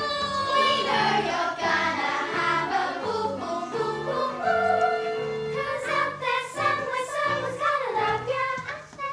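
A young cast singing a musical-theatre song in chorus over instrumental accompaniment.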